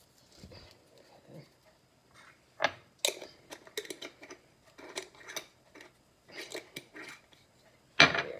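Kitchen handling noise while seasoning chicken: a scattered series of clicks, taps and knocks from spice containers and dishes being handled, with sharper knocks about two and a half, three and eight seconds in.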